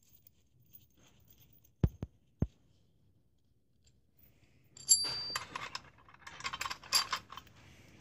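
Three sharp knocks about two seconds in, then small steel parts clinking and rattling: a bolt, nut and socket adapter being handled against a scissor jack, with a brief metallic ring as the clinking starts.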